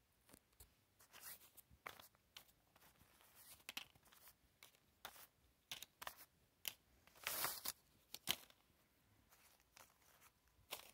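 Faint, irregular rustles and light clicks of small cardboard and plastic toy miniatures being handled, with one longer rustle about seven seconds in.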